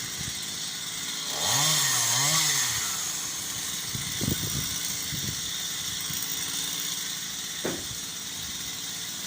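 Two-stroke chainsaw running, revved up and down twice about a second and a half in, then running on, with a few short knocks in the middle.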